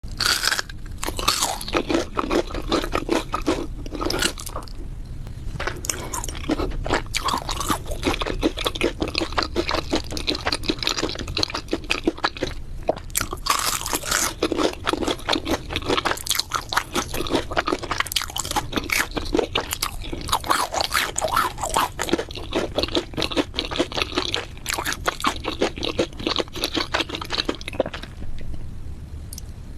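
Crispy fried food being bitten and chewed close to the microphone: dense, crackling crunches, thinning out near the end.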